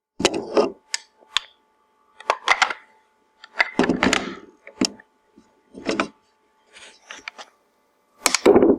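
Steel parts of a UK vz. 59 machine gun being handled and fitted during reassembly: a string of separate metallic clacks and knocks, the loudest near the end.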